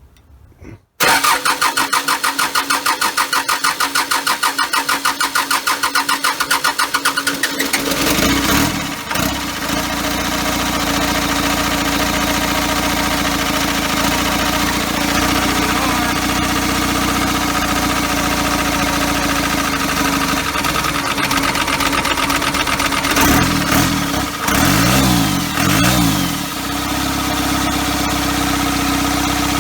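Cummins diesel engine on a cold start: the starter cranks it with a fast, even chug for about seven seconds, it catches about eight seconds in and settles into a steady idle. Near the end the pitch rises and falls a few times as it is revved briefly.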